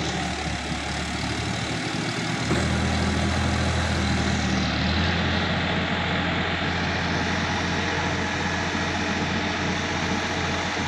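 Sonalika DI-50 RX tractor's diesel engine running steadily under load while its rear-mounted rotary tiller churns dry soil, getting a little louder about two and a half seconds in.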